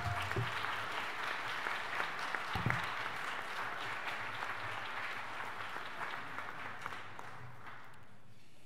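Audience applauding, many hands clapping together; the applause dies away near the end.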